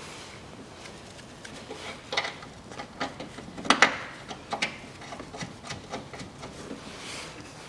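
Scattered light metallic clicks and knocks as an engine mount bracket and its bolts are handled and positioned by a gloved hand, with the loudest pair of clicks about four seconds in.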